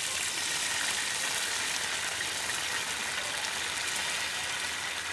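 Dried red chillies and curry leaves frying in hot oil in a wide metal pan: a steady, even sizzle.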